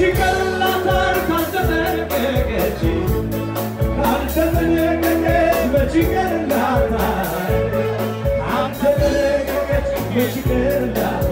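A live band playing Ethiopian pop music, with a male singer on lead vocals over a steady beat.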